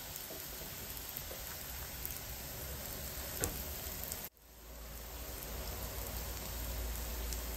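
Breaded eggplant patties frying in shallow oil in a pan, a steady sizzle. A single light click about three and a half seconds in, and the sizzle drops out for a moment just past halfway.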